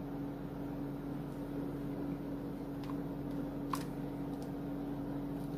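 Steady hum of a running motor or fan, with a constant low tone under it. Two faint light taps come about three and four seconds in.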